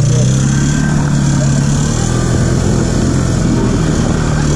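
ATV engine running loud at a steady pitch.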